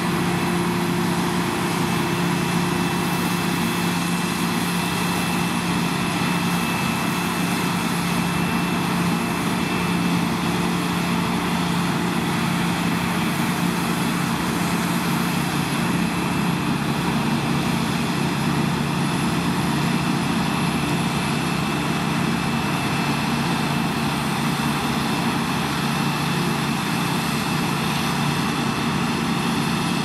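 New Holland CX8080 combine harvester running steadily while cutting winter oats: a continuous engine drone with steady high whining tones over it.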